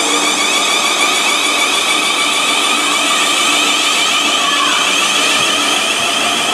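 South Western Railway Class 444 Desiro electric multiple unit pulling out of the platform, its traction motors giving a high, rising electric whine as it accelerates. A lower tone glides down about two-thirds of the way through.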